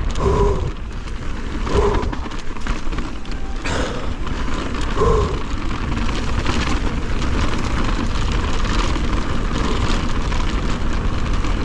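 Mountain bike descending fast on a downhill race course: a steady rush of wind on the microphone with heavy rumble and rattle from the rough trail, and a few brief higher-pitched sounds mixed in.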